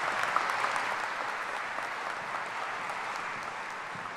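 Audience applauding, a dense steady clapping that slowly dies down over the last second or so.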